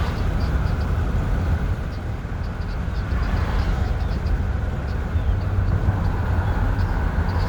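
2013 Ford Explorer making short, high-pitched squeaks in irregular clusters over a steady low vehicle rumble. The squeaks cluster near the start, around the middle and again near the end. Their cause is unknown.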